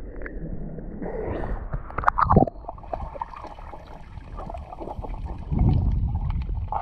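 Seawater sloshing and gurgling around a camera held at the surface and then dipped under water, where the sound turns muffled. Scattered small clicks run through it, and a low rumble swells near the end.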